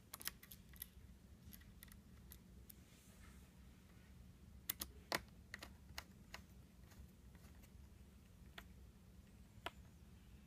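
Faint, scattered clicks and ticks of a small screwdriver and screws against a laptop screen's frame as the screws are driven back in, with a sharper cluster of clicks about five seconds in.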